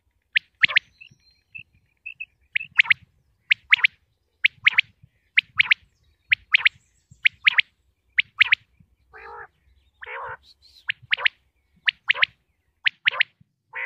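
Common quail calling: sharp, high notes in quick clusters of two or three, repeated about once a second. About nine and ten seconds in come two longer, rougher notes.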